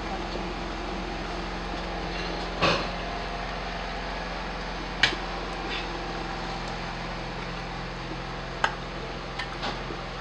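A steady mechanical hum with a light hiss, broken three times by a short knock or clink.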